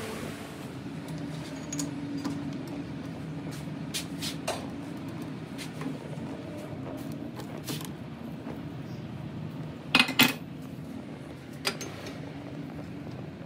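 Light metallic clinks and taps of tools and steel parts being handled, scattered through a steady low hum, with two sharp clinks close together about ten seconds in.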